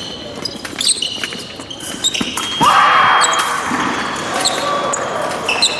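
Épée fencers' footwork on the piste: quick stamps and shoe squeaks, with sharp clicks that fit blades meeting. About two seconds in, a thin steady high tone sounds for about a second, and a louder burst of noise comes just after it.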